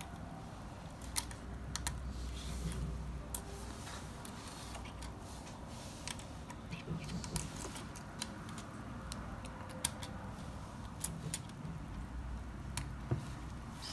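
Small plastic kit parts of a Strandbeest model clicking and rattling as they are handled and pressed together: feet being snapped onto the legs. About a dozen sharp clicks come at irregular intervals over light handling noise.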